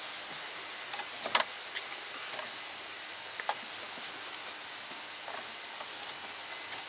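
Scattered light knocks, clicks and rustles from hands pressing a driver figure into the seat of an RC go-kart, the loudest knock about a second and a half in, over a steady background hiss.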